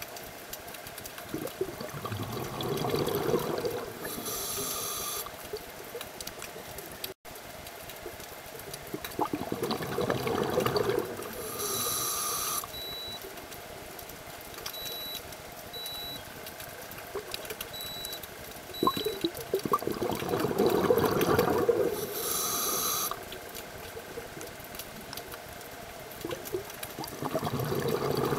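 Scuba diver's regulator breathing underwater: a rush of exhaled bubbles lasting about two seconds, then a short hiss of inhalation, repeating about every eight to nine seconds, three full breaths in all.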